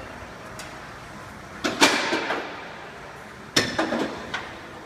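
Two loud clattering bangs, about two seconds apart, each ringing out for roughly half a second, as a heavy store fixture is shoved and knocked about.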